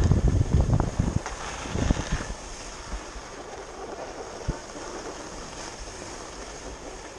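Wind buffeting the microphone, heavy and gusty for the first two seconds, then easing to a steadier hiss.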